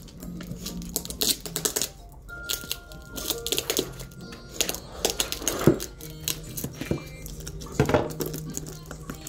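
Scissors snipping through the packing tape wrapped round a parcel, a string of sharp cuts with crinkling and tearing of the tape, the loudest about five and a half and eight seconds in. Background music plays under it.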